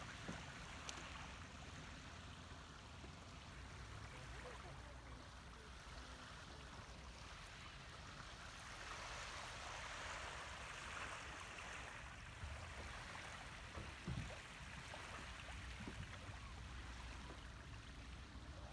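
Faint, steady wash of water along the shore of a calm bay, with a few soft knocks about three-quarters of the way through.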